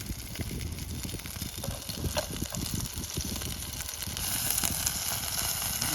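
Burgers sizzling and spitting in a frying pan, a steady crackling hiss that grows louder and brighter about four seconds in.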